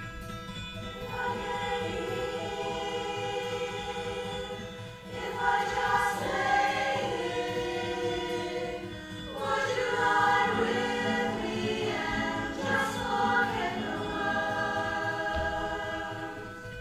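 Choir singing, several voices in chords with held notes, growing louder about five seconds in.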